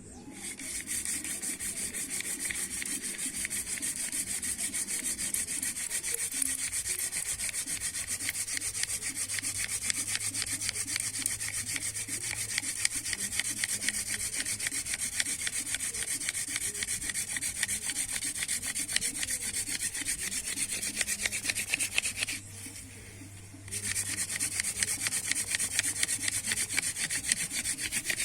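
Wooden spindle of a hand drill twirled between the palms against a wooden hearth board: a steady, fast rasping of wood on wood as friction builds heat toward an ember. It stops for about a second roughly three quarters of the way through, then starts again.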